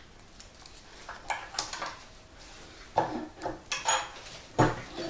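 Irregular knocks and light metallic clinks of tools and small hardware being handled on a worktable. They start about a second in and are loudest near three seconds in and near the end.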